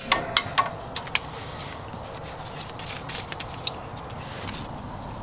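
Small metal parts clinking and jingling as they are handled, with several sharp clicks in the first second and a half, then only a few light ticks before it settles.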